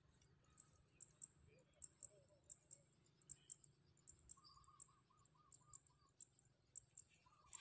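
Quiet waterside ambience: faint, short, high chirps from distant birds repeating irregularly, with a brief run of lower warbling notes a little over four seconds in.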